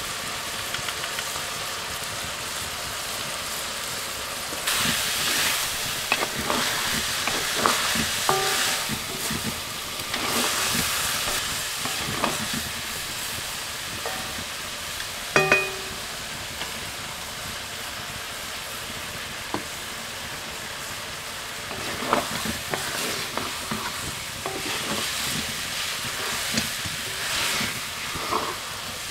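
Mutton and green beans sizzling in a black iron wok, stirred and scraped with a wooden spatula in two spells. A single loud, ringing metal clank about halfway through.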